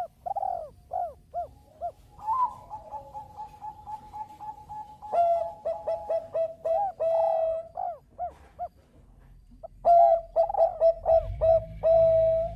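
Zebra dove (perkutut bangkok) singing: runs of quick, clipped coos that rise and fall in pitch, with a longer steady note about two seconds in.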